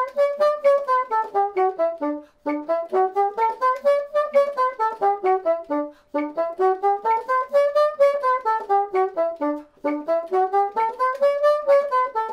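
Bassoon playing a scale passage up and back down in quick separate notes, repeating it with short breaks between the runs.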